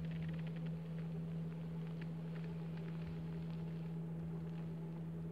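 Electric outboard motor running with a steady, even hum, pushing the boat slowly while trolling. A few faint light ticks come in the first few seconds.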